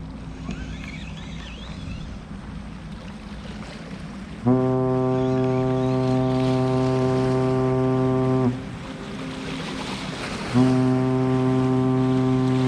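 A ship's foghorn sounding two long, steady, low blasts of about four seconds each, the first starting a few seconds in and the second following after a pause of about two seconds.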